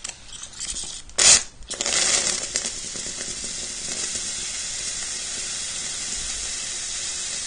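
A sharp knock about a second in, then a steady hiss of hot water and steam being used to set off a smoke detector.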